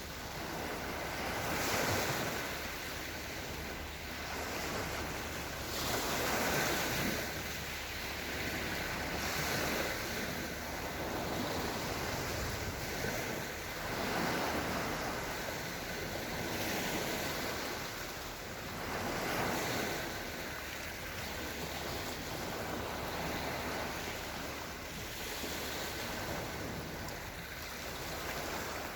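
Small Black Sea waves washing gently onto the shore, swelling and easing every four to six seconds.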